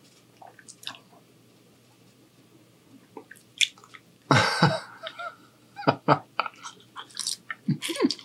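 A person eating angel hair pasta: quiet for the first few seconds, then a loud wet slurp of noodles about four seconds in, followed by chewing with mouth smacks and clicks.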